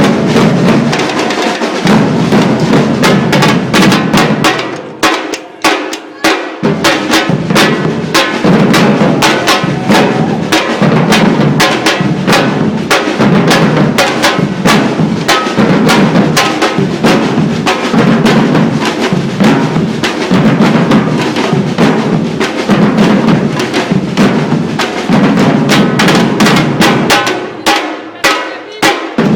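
Percussion ensemble drumming: a driving rhythm of deep bass drums under many sharp, fast drum strikes. The playing thins out briefly about five seconds in and again near the end before the full group comes back in.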